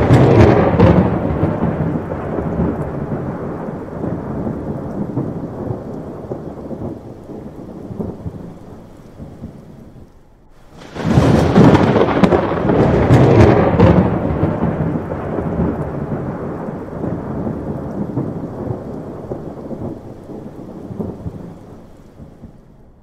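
Two thunderclaps about eleven seconds apart, each loud at first and rolling off into a long fading rumble.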